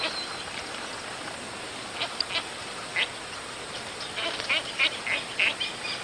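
Recorded calls of a white-faced ibis: short, separate calls at about two and three seconds in, then a quick run of them near the end, over the steady hiss of a field recording.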